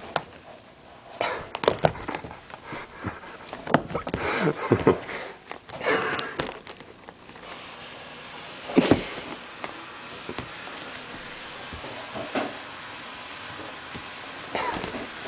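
A cat wrestling a toy mouse against upholstered furniture: irregular thumps, scuffs and rustling of fur and fabric, busiest in the first half, with one loud knock about nine seconds in.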